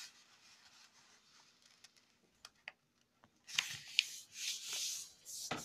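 A sheet of origami paper being folded and creased by hand: quiet at first, then rustling with a few sharp crinkles from about three and a half seconds in, and another rustle near the end.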